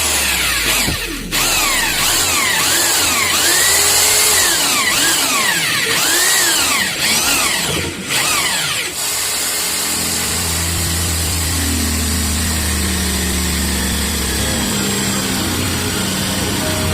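Electric drill with a hole saw boring the doorknob hole through a door, its whine rising and falling again and again as the trigger is eased on and off. After about nine seconds the drilling gives way to background music with a steady low beat.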